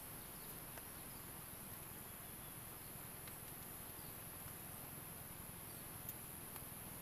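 Faint, steady high-pitched drone of forest insects over the low rush of a swollen, flooding river.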